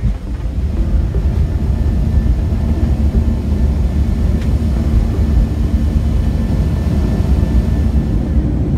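Airliner's engines at takeoff thrust heard from inside the cabin during the takeoff roll and liftoff: a loud, steady low rumble with a steady hum, growing louder about a second in.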